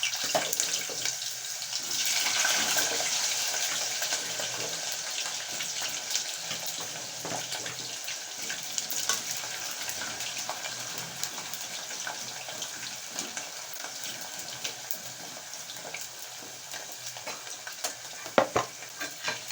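Raw potato chips going into hot cooking oil in a sufuria, the oil sizzling and bubbling hard. It starts suddenly, is loudest a couple of seconds in, then slowly eases off, with a sharp click near the end.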